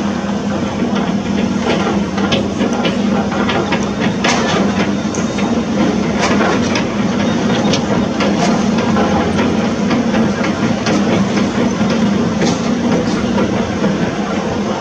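Heavy construction machinery at work: a steady low engine hum with frequent sharp knocks and cracks over it, thickest between about two and seven seconds in.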